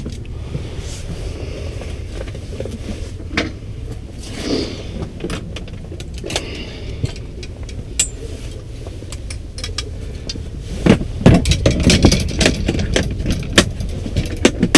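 Ice fishing rods and gear being handled and packed into a foam-lined hard case, making scattered clicks, clunks and rattles. The knocking and rattling grows louder and busier from about eleven seconds in, over a steady low rumble.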